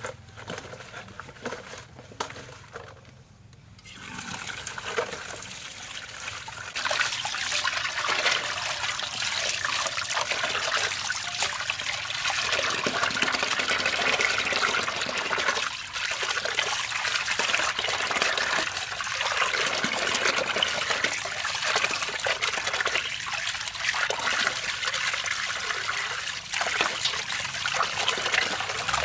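Water running and splashing in a steady stream, building up about four seconds in and getting louder a few seconds later.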